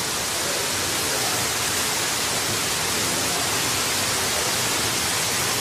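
Steady, even hiss with no tones or breaks.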